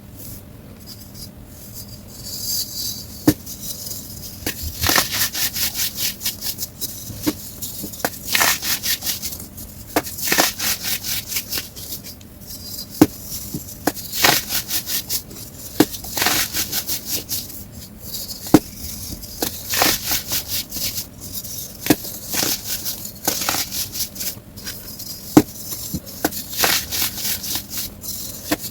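White baking soda being crushed, sped up: runs of dry crunching and crumbling in quick clusters, with a sharp crack standing out every few seconds.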